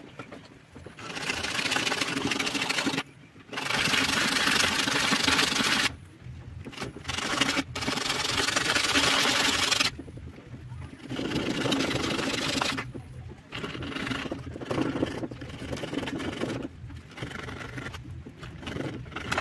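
A small metal strip rubbed by hand on a sanding disc, a rasping scrape in stretches of a few seconds with short pauses between them; the later stretches are quieter and choppier.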